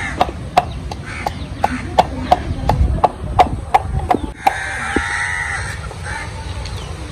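Regular sharp knocks, about three a second, for the first four seconds or so. After that a rooster crows once, about a second long.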